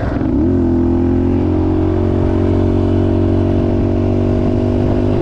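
Small off-road motorbike engine running at a steady speed while riding, dipping briefly in pitch just after the start and then holding steady.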